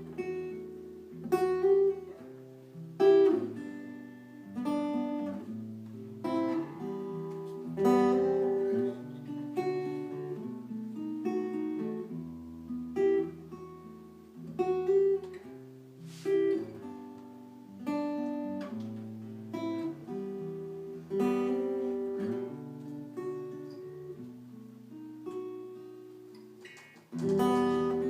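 Acoustic guitar playing an instrumental passage without vocals: strummed chords and picked notes, each struck sharply and left to ring.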